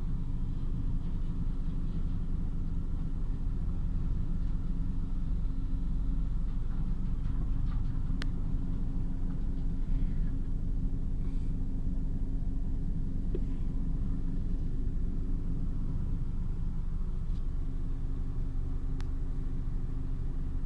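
Steady low rumble of a car moving slowly over a dirt road, heard from inside the cabin, with a constant hum and two sharp clicks, one about eight seconds in and one near the end.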